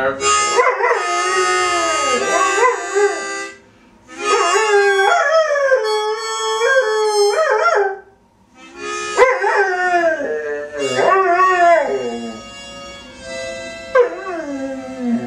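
A dog howling along to music: three long, wavering howls that slide up and down in pitch, broken by short pauses about four and eight seconds in, then a short falling howl near the end.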